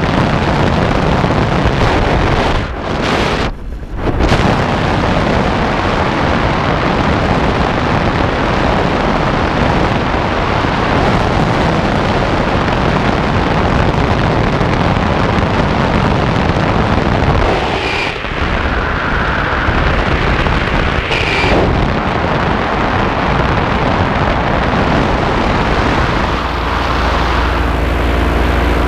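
Moster two-stroke paramotor engine and propeller running steadily in flight, mostly buried under heavy wind rush on the microphone, with a couple of brief lulls about three seconds in. Near the end the engine's steady hum comes through more clearly.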